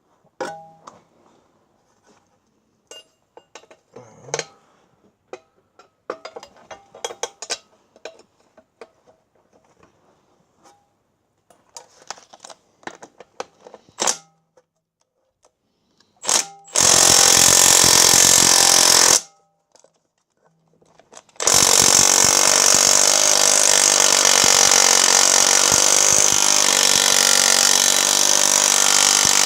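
Scattered clicks and knocks of tools and a socket being handled and fitted, then a Milwaukee M12 Stubby 3/8-inch cordless impact wrench hammering on a rusted suspension bolt: a burst of two or three seconds past the middle, then after a short pause a long, steady run.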